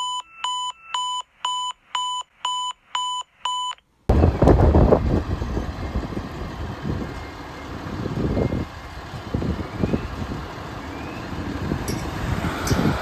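A series of about eight electronic alarm beeps, roughly two a second, the first few at a slightly different pitch. About four seconds in it cuts off abruptly to loud outdoor noise with a heavy low rumble, like vehicles and wind on the microphone.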